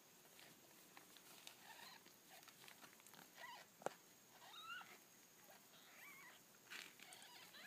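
Newborn kittens mewing faintly: several short, high, squeaky cries that rise and fall. A single sharp click comes a little before halfway.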